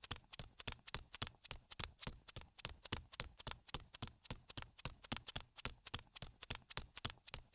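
Faint footsteps sound effect: quick, even taps, about five a second.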